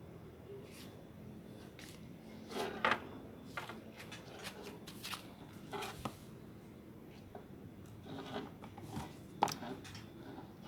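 Scattered clicks, taps and light knocks of hand tools and metal parts being handled during a brake repair, irregular and a second or so apart, the loudest pair of knocks about three seconds in.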